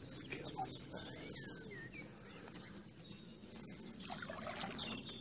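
Birds chirping, with short high calls and a few sliding whistled notes scattered through, over a low steady background rumble.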